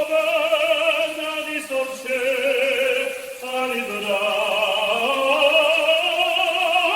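Operatic singing voice holding long, wavering notes without recognisable words, with no beat behind it; the pitch slides down about halfway through and climbs back up.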